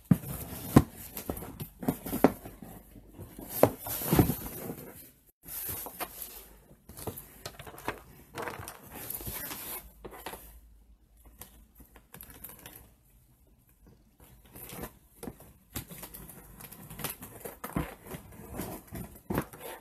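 A cardboard shipping box being handled and opened by hand: irregular knocks, scrapes and crinkling of packaging, quieter for a few seconds midway.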